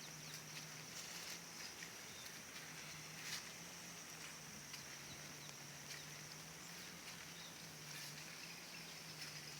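Insects chirring in a steady, high-pitched drone over a faint low hum, with a few faint scattered ticks.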